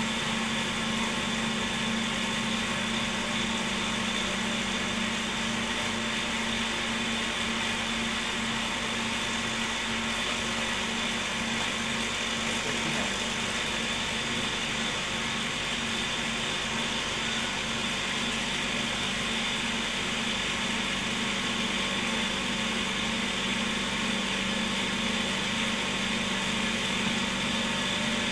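Cotton candy machine with a DC motor running steadily, a constant motor hum with a steady whine.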